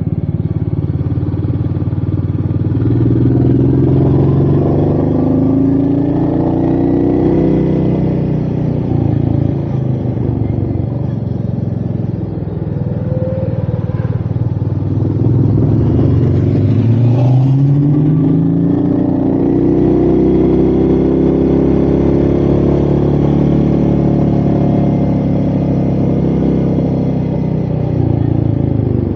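Royal Enfield Meteor 350's single-cylinder engine running under way, its pitch rising and falling as the rider works the throttle and gears, with a steep climb about sixteen seconds in and another long rise after it, over a rush of wind.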